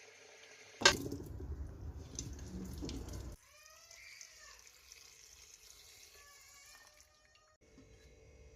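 Water running for a couple of seconds, starting with a sharp knock and cutting off abruptly. Faint sliding tones follow.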